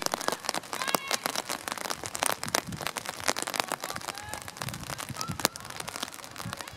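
Dense, irregular crackling ticks throughout, with a few faint distant shouts from players on the pitch.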